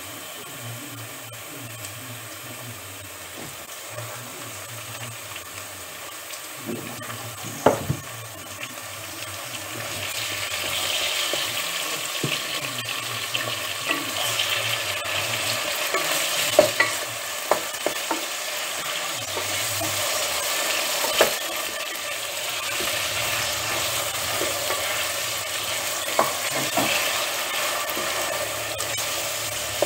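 Minced meat frying and sizzling in a steel pot, stirred with a wooden spoon that knocks against the pot now and then. The sizzling grows louder about a third of the way in.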